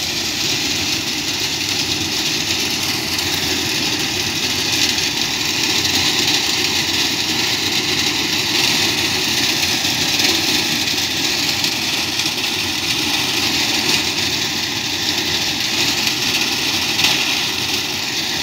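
Tractor engine running steadily as it drives a mounted reaper cutting standing sorghum (jowar) stalks, the engine and the cutting machinery making one continuous mechanical noise.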